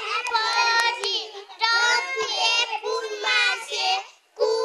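A group of small children singing together in short phrases without accompaniment, with a brief pause about four seconds in.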